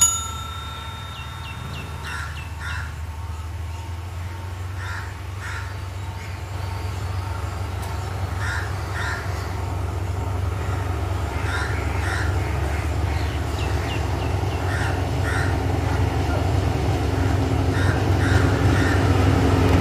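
Sri Lanka Railways Class W3 diesel locomotive running as it approaches, a steady low rumble that grows louder throughout. Over it, crows caw in pairs every few seconds.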